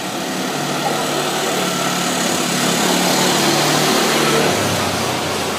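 Quad bike's small engine approaching and passing close by. It grows louder, then drops in pitch as it goes past about four and a half seconds in.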